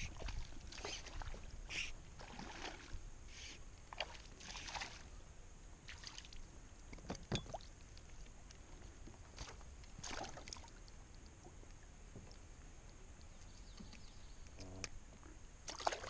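Small splashes and drips of water at the side of an inflatable pontoon boat as a small fish is played in, lifted out and released, with scattered short knocks and sloshes.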